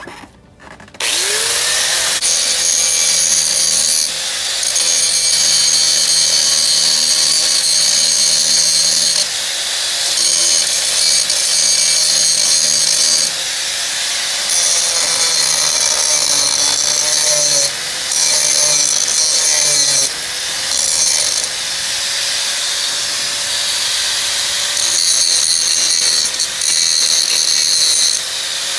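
Electric angle grinder switched on about a second in, spinning up, then grinding rust off the shoe contact points of a drum-brake backing plate. The sound runs steadily, with brief dips every few seconds as the disc moves from spot to spot.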